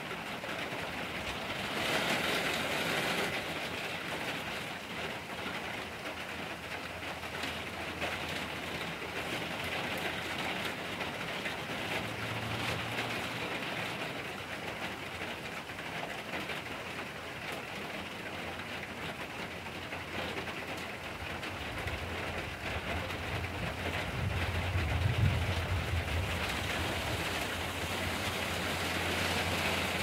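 Steady rain falling on the forest canopy and ground, an even hiss of drops. A low rumble swells for a few seconds near the end.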